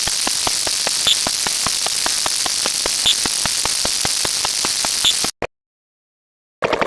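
A steady hiss with fast, even ticking, about five ticks a second, and a louder click every two seconds, like a mechanical sound effect. It cuts off suddenly about five seconds in. After a second of silence, a different, louder ticking sound starts near the end.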